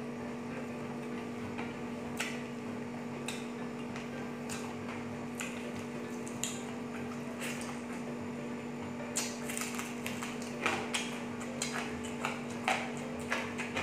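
A person chewing food with the mouth open, giving short wet smacks and clicks, sparse at first and coming thick and fast in the last few seconds, over a steady low hum.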